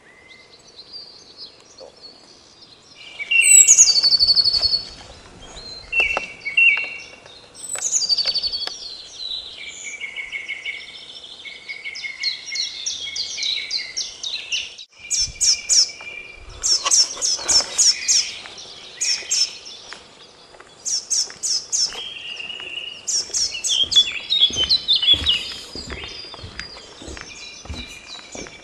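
Songbirds singing: a string of varied chirps, whistled phrases and quick trills, some notes repeated rapidly several times in a row.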